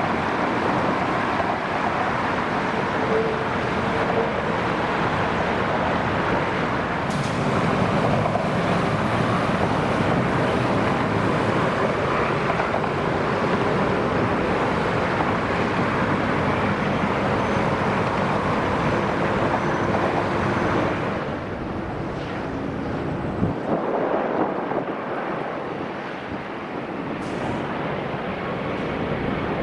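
Jet airliner engines on the runway, a loud steady rush of jet noise; about three quarters of the way through it drops to a quieter jet sound with wind on the microphone.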